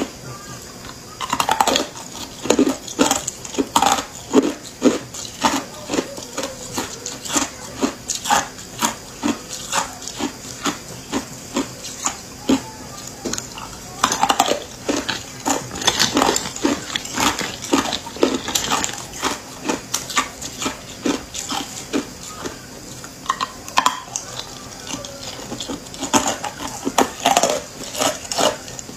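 Hard clear ice cubes being bitten and chewed close to a clip-on mic: a fast, irregular run of sharp crunches and cracks, several a second, with short breaks between mouthfuls.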